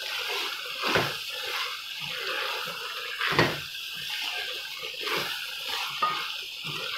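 Wooden spoon stirring and scraping chicken and vegetables in a metal pot over a steady frying hiss, with louder knocks or scrapes against the pot about a second in and again about three and a half seconds in.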